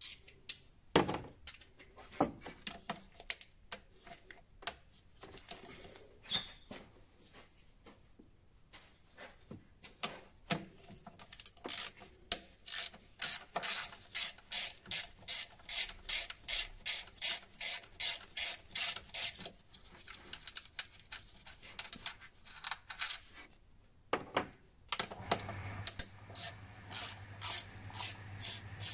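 Hand ratchet wrench clicking as a bolt is turned, in two long runs of even clicks at about three a second, after some scattered knocks of the tool against metal.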